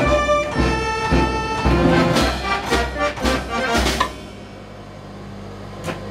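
Self-playing accordion band playing a dance tune: Hohner accordion over a steady bass-drum beat about twice a second, with cymbal crashes. About four seconds in, the drums stop and only a quiet held note remains, until a single cymbal tap near the end.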